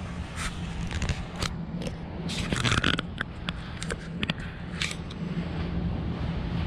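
Dry laundry being handled at an open clothes dryer and wire laundry cart: fabric rustling with scattered light clicks and scrapes, busiest about two and a half seconds in, over a steady low hum.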